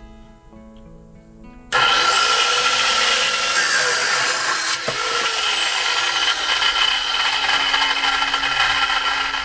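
Power tool cutting through a metal spoon handle. It starts suddenly about two seconds in, its pitch rising as it spins up, then runs loud and steady with a brief dip in pitch around the middle.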